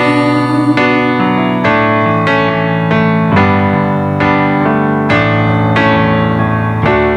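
Piano-style keyboard playing slow, sustained chords alone, with no voices, a new chord or note struck about once a second.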